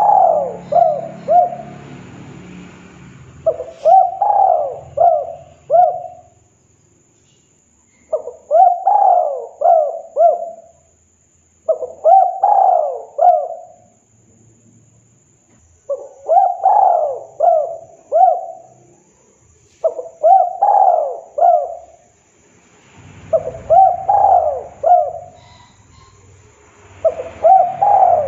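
Spotted dove cooing in full song, repeating a phrase of three or four quick coos with a rise and fall in pitch, about once every four seconds.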